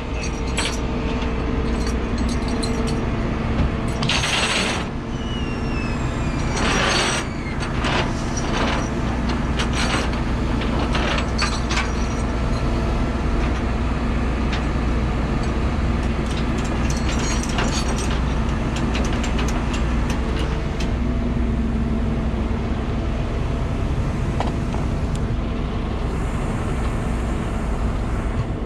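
Ratchet of a wheel tie-down strap on a flatbed tow truck being worked: irregular clicking and rattling over a truck engine running steadily.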